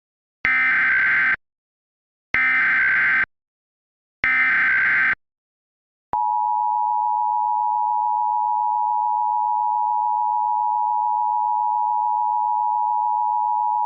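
Emergency Alert System SAME header: three bursts of warbling digital data tones, each just under a second and about a second apart. About six seconds in, the steady two-tone EAS attention signal starts and holds for about eight seconds, marking the start of an emergency alert broadcast.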